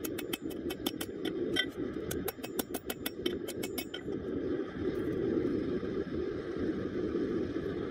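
A hammer strikes hot rebar on a steel anvil in quick blows, about four or five a second, and stops about four seconds in. Under it the burner of a small gas forge keeps up a steady roar.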